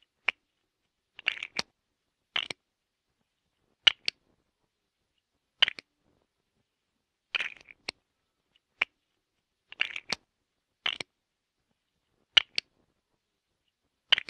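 Lego bricks clicking and snapping together, in about a dozen short bursts of plastic clatter that come every second or two with silence between.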